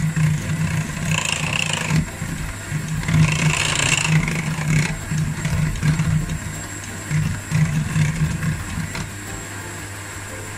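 Electric hand mixer running, its beaters whipping cheesecake batter in a stainless steel bowl: a steady motor hum and whine with a pulsing churn. It gets quieter about nine seconds in.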